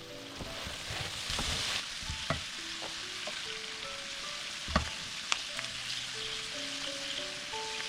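Food frying and sizzling in a pan as it is stirred, the spoon knocking against the pan a few times, sharpest a little before the middle. A soft background melody plays under it.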